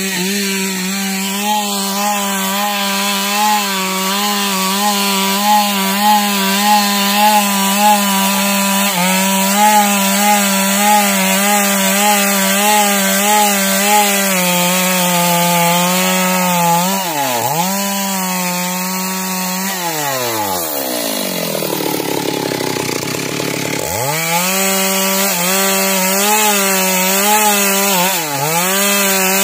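Two-stroke Stihl chainsaw revving up and cutting through a log at full throttle, the engine note wavering under the load of the cut. About twenty seconds in it drops back to idle, then revs up again a few seconds later and goes back into the cut.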